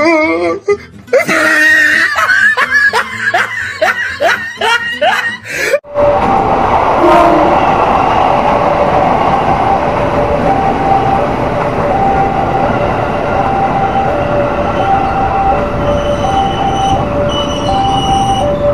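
An edited-in voice clip with quick sliding pitch cuts off abruptly about six seconds in, giving way to an electric commuter train running past, its wheels rumbling steadily on the rails. Over the train, a level-crossing alarm sounds two alternating tones, low then high, about once a second.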